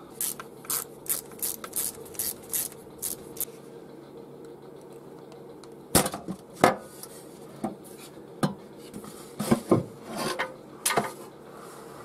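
Metal clinks and knocks as the Allen bolts come out and a welded aluminium short sump is worked free and lowered from a Subaru EJ20 engine. A run of light ticks, about three a second, comes first, then scattered knocks and clatter in the second half.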